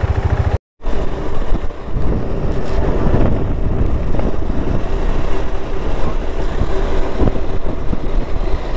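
Motorcycle engine running with even low pulses. After a sudden cut under a second in, it gives way to a steady riding rumble of engine and road noise with some wind on the microphone.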